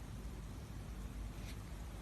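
Steady low hiss and hum of room tone, with one faint short click about one and a half seconds in.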